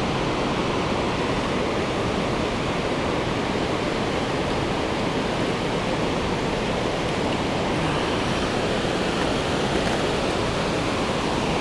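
Steady rushing of flowing river water, an even noise that holds at the same level throughout.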